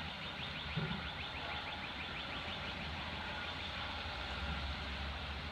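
A compressor running: a steady mechanical hum and hiss, with a fast, light ticking over the first half and a soft knock about a second in.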